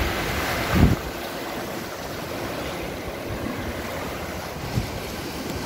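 Sea surf washing against shore rocks, a steady rush, with wind buffeting the microphone and one brief low thump a little under a second in.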